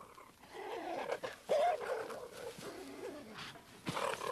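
Cheetahs scuffling, with short whining, yelping calls; the clearest call comes about one and a half seconds in, and the calls get louder again near the end.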